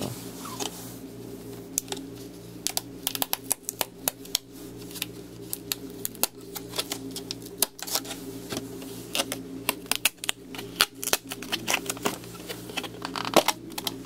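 Plastic packaging of memory modules being opened and handled: a long run of irregular plastic clicks and crackles over a steady low hum.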